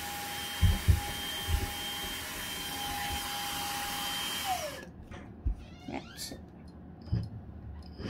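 Xiaomi portable handheld vacuum cleaner running with a steady whine and rush of air, with a few knocks from handling about a second in. A little past halfway it is switched off and the whine drops as the motor spins down, leaving faint handling clicks.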